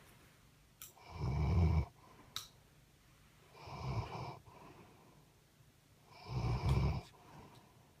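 Heavy snoring: three long snores about two and a half seconds apart, the first and third the loudest, with quiet breathing and a couple of faint sharp clicks between them.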